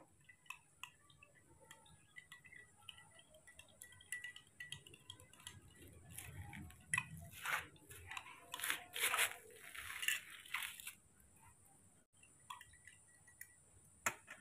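Close handling sounds: soft rustling and crinkling in a run of irregular bursts through the middle, with faint light clinks before them.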